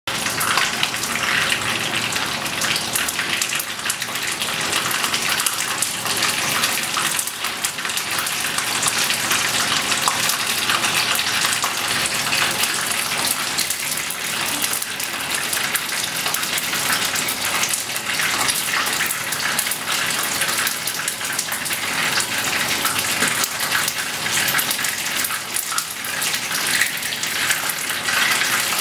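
Vietnamese spring rolls shallow-frying in hot oil in a frying pan: a steady sizzle full of fine crackling that goes on throughout.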